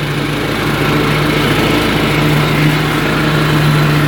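Zero-turn riding lawnmower engine running steadily under load while mowing.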